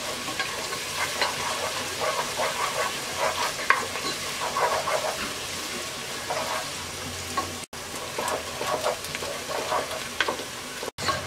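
Chopped onions sizzling in hot oil in a cooking pot, with the utensil scraping and clicking against the pot as they are stirred.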